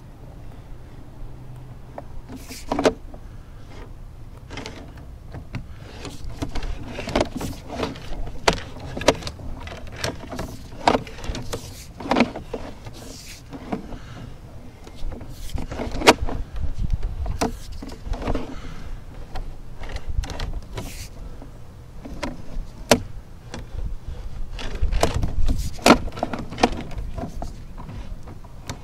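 Sewer inspection camera's push rod being fed down a kitchen sink waste line: irregular clicks and knocks over a low rumble as the rod and camera head are pushed along the pipe.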